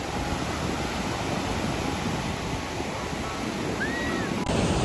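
Steady noise of ocean surf and wind on the microphone, with a brief high-pitched call about four seconds in.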